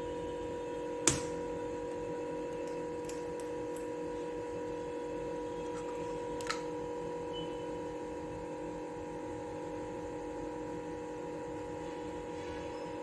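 Egg being separated by hand over glass bowls: a sharp tap of eggshell on the glass rim about a second in, a fainter one at about six and a half seconds, and a few light ticks between. A steady electrical hum runs underneath.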